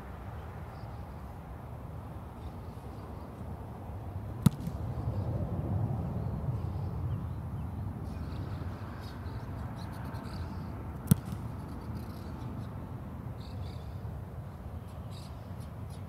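A punter's foot striking a football twice, two sharp thuds about six and a half seconds apart, the first about four and a half seconds in. Under them runs a low steady rumble.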